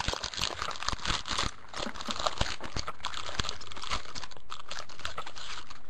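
Plastic packaging crinkling and crackling in quick, irregular bursts as trading cards are pulled out of a freshly opened box, busiest in the first couple of seconds.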